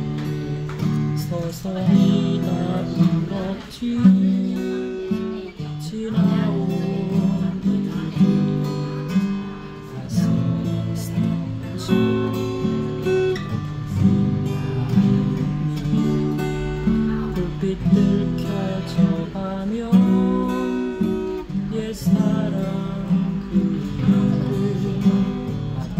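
Steel-string acoustic guitar played with the fingers, picking and strumming chords, with an accented chord about every two seconds.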